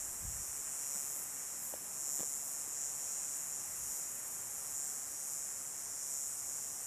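Crickets chirping in a steady, unbroken high-pitched chorus.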